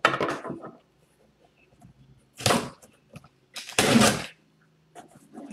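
Sealing tape being torn off a cardboard shipping box as it is opened: three short tearing noises, near the start, about two and a half seconds in and about four seconds in.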